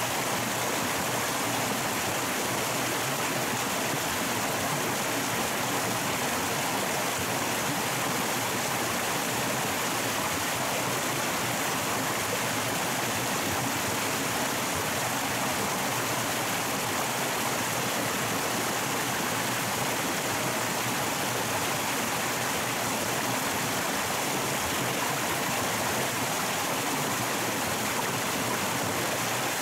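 Steady rush of a flowing stream, even and unbroken with no separate splashes or knocks.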